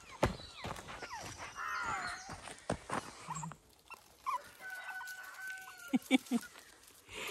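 Puppy giving high chirping squeaks as it runs, with footsteps crunching on gravel throughout.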